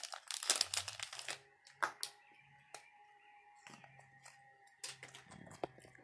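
Plastic snack pouch crinkling and rustling as a Java macaque handles it, densest and loudest in the first second and a half, then only a few scattered small clicks.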